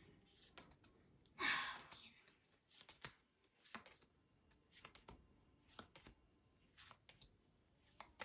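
Pokémon trading cards being flipped through one at a time, a soft click about every second as each card is slid to the back of the stack. A short breathy sound about a second and a half in is the loudest moment.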